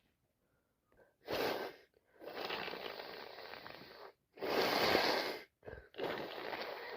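A woman with a cold that has turned into sinusitis, making a run of loud, rushing breathy and nasal sounds through a congested nose, about four in a row. The loudest come about one and a half and five seconds in.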